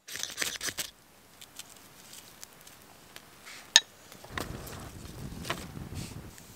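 Small campfire of birch bark and twigs being lit and fed: a cluster of crackles and snaps in the first second, scattered small snaps, one loud sharp snap a little before the middle, then a low rushing sound with crackling over the last two seconds as the flames take hold.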